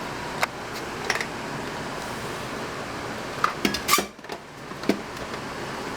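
Light metallic clicks and clinks of a knife blade being set and clamped into a small hand-sanding holder, a handful of separate taps with the loudest cluster a little over halfway, over a steady background hiss.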